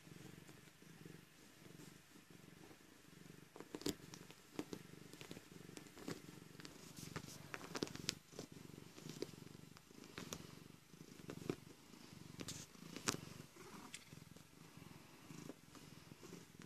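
A domestic cat purring steadily while it treads and paws at a pillow and duvet, with frequent short rustles and scratches of the bedding from about four seconds in, the sharpest about four seconds in and again near the end of the second third.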